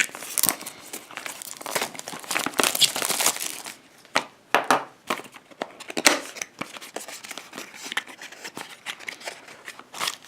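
Packaging being opened and handled: irregular crinkling and rustling, busiest in the first few seconds, with louder bursts around four and six seconds in.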